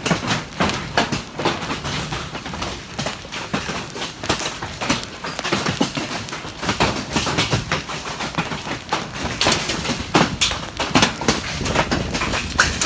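Large hailstones pelting down in a dense, irregular clatter of hard impacts, with a few louder strikes around ten seconds in.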